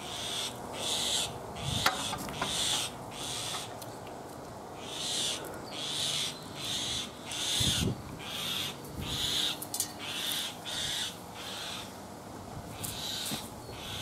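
A common myna giving harsh, rasping squawks again and again in irregular runs, alarm calls at a dog close by. There is one sharp click about two seconds in.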